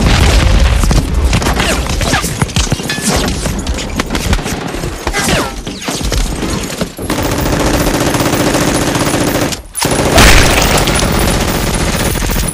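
Rapid, continuous machine-gun and rifle fire sound effects, dense overlapping shots. About seven seconds in, a steady humming tone joins under the shooting, and the shooting breaks off briefly near ten seconds before resuming.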